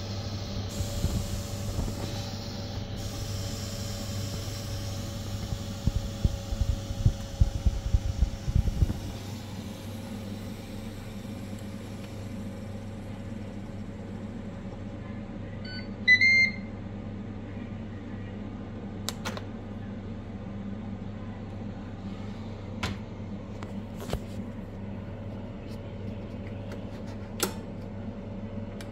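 Ninja Foodi MAX multi-cooker with a steady low hum. It gives a single short electronic beep about halfway through. Sharp plastic clicks follow in the last ten seconds as the lid handle is worked, with a few seconds of low rumbling handling noise early on.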